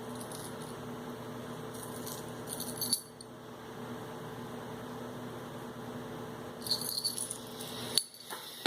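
Light clicking and rattling of small objects being handled, in two short bursts, with a sharper knock near the end, over a steady low hum.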